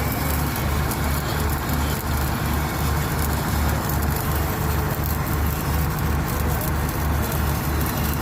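Arc welding: a steady crackling sizzle over a low hum that pulses two to three times a second.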